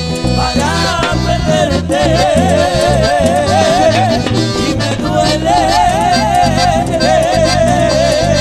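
Cumbia band playing live: an instrumental passage with a wavering, vibrato-laden lead melody over a steady bass and percussion beat.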